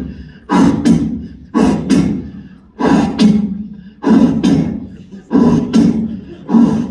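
A person making loud, rhythmic vocal sounds through a microphone and PA, one burst roughly every second, each with a double peak that fades before the next.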